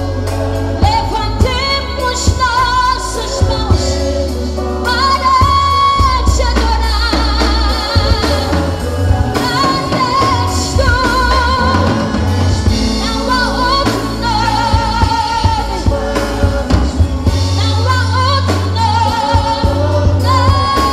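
Live gospel worship band music: a drum kit and steady bass under a sustained lead melody with a wavering vibrato.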